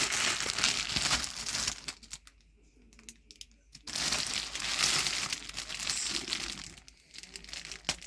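Plastic packaging around a kilt crinkling as it is handled and unwrapped, in two spells with a short pause in between.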